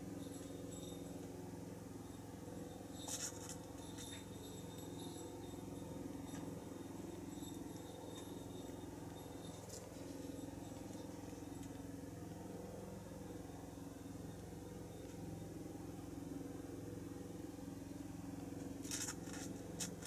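Mother cat purring steadily, a low continuous hum, as her kittens nurse against her. A few faint scratchy clicks come about three seconds in and again near the end.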